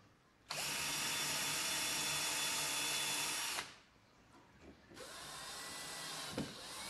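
Power drill-driver running in two bursts as screws are driven: a steady run of about three seconds that starts and stops abruptly, then after a short pause a second, quieter run whose speed dips and picks up again.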